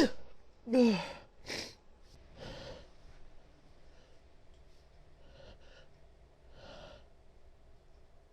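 The tail of a woman's sneeze, then a short voiced exhale falling in pitch about a second in, followed by a few quieter breaths.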